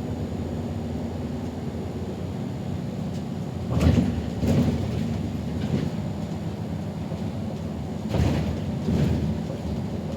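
City bus driving, heard from inside: a steady low rumble of engine and road. It is broken by two pairs of short thumps, about four and eight seconds in.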